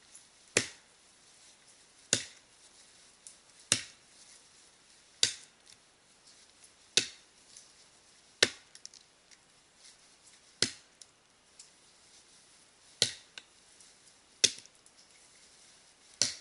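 Axe chopping into a standing tree trunk at the felling cut: about ten sharp single blows, one every one and a half to two seconds.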